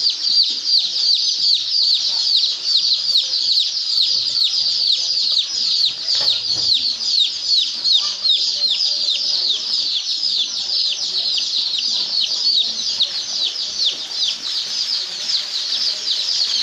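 A large flock of young chicks peeping without pause: a dense chorus of many overlapping high, downward-sliding cheeps.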